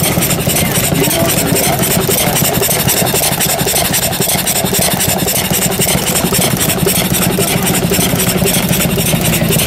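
An engine running loud and steady with a fast, even beat, about ten pulses a second.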